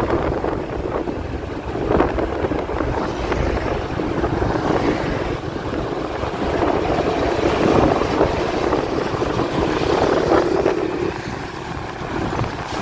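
A vehicle's engine and road noise while riding along, with wind buffeting the microphone.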